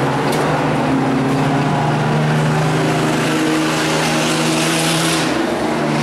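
Race pickup truck's engine running at speed around the track: a steady, loud drone with small shifts in pitch, its note dropping briefly about five seconds in.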